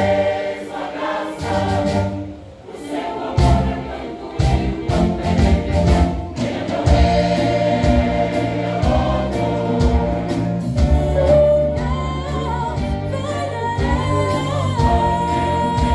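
Choir singing a gospel song over band accompaniment with a steady beat.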